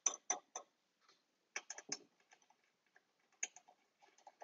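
Faint metal clicks and light taps in a few short clusters: washers and wing nuts being set onto the studs of an aluminum knife-sharpening jig's hold-down and started by hand.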